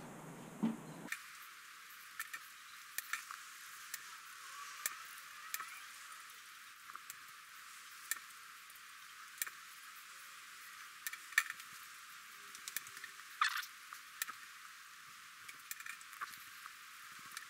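Small steel nuts clicking and clinking as they are handled in a gloved palm and started onto threaded studs one at a time: light, irregular metallic ticks over a faint hiss.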